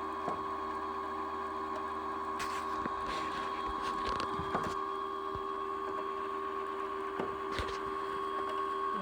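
Brother Innov-is 40 sewing machine winding thread onto a bobbin: its motor runs with a steady hum and a higher whine. A few light clicks come in the middle and once near the end.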